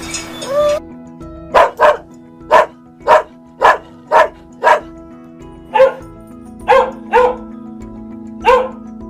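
A dog barking: a series of about eleven short barks, some in quick pairs, over a steady background music drone.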